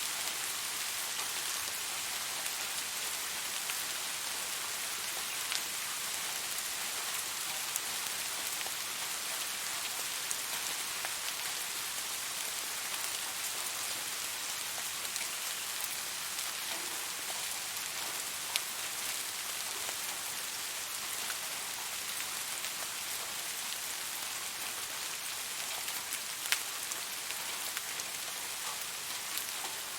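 Steady rain falling, an even hiss with scattered individual drop ticks, a couple of them sharper, about two-thirds and near the end.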